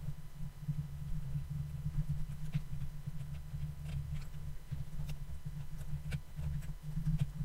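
Irregular light clicks from computer mouse and keyboard use, roughly one a second, over a steady low hum.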